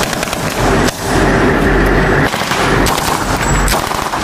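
About four separate gunshot cracks of blank rounds over a steady, loud rush of noise.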